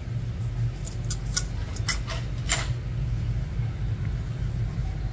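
Steady low background hum, with a quick run of about six short, sharp metal clicks between one and three seconds in from a steel nail nipper working at the edge of a thickened toenail.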